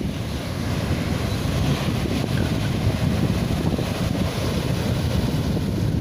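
Sea wind blowing on the microphone in a steady low buffeting, over the wash of fairly strong waves breaking on the shore.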